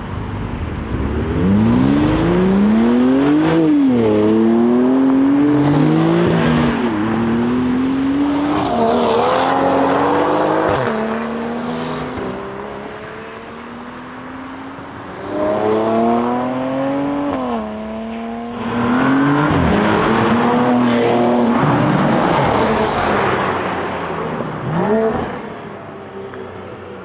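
BMW M340i's turbocharged 3.0-litre inline-six, on a custom downpipe and midpipe, accelerating hard again and again. Its pitch climbs steeply and then drops at each upshift. There are three loud runs with a quieter spell between the first two, and it falls away near the end.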